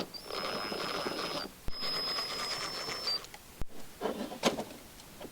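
A small electric power tool, such as a cordless driver, runs in two bursts of about a second and a half each with a steady high whine, backing out the cover screws of an oil pump. A few light metallic knocks follow near the end.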